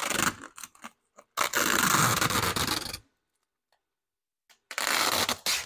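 Clear protective plastic film being peeled off a magnetic PEI printer bed sheet, a crackling scrape in three stretches: a short one at the start, a longer one of about a second and a half, and a last one near the end.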